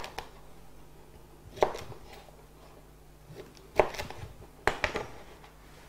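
Kitchen knife slicing pointed gourds on a cutting board: about five sharp, irregularly spaced knocks as the blade goes through and strikes the board, two of them in quick succession near the end.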